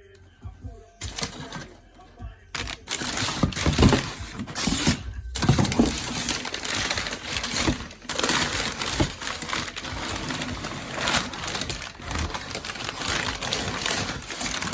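Crinkling and clattering of cold air intake parts and their plastic packaging being handled, dense and irregular with many sharp clicks, starting about two and a half seconds in after a quiet moment.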